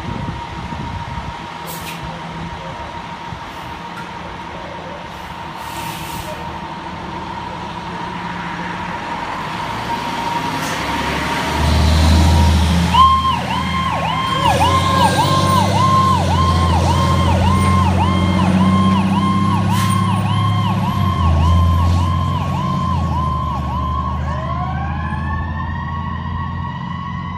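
Fire engine's diesel engine rumbling as it pulls out of the station, its electronic siren starting about halfway in with a fast, repeating up-and-down yelp. Near the end a siren's pitch winds upward alongside it.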